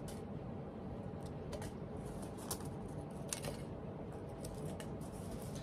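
Folded paper slips being dropped by hand into a small ceramic mug: faint, scattered light ticks and rustles over low room noise.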